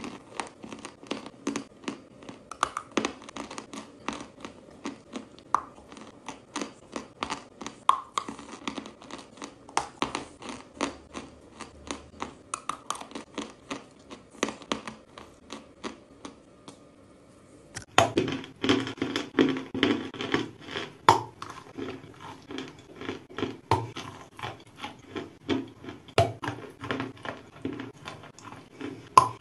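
Chalk being bitten and chewed close to the microphone: dense, sharp crunching and snapping, several crunches a second. Past halfway the sound changes, with a fuller background and louder crunches.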